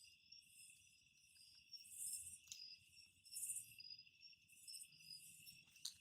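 Faint chorus of night insects: crickets trilling steadily, with a higher buzz that swells and fades over and over.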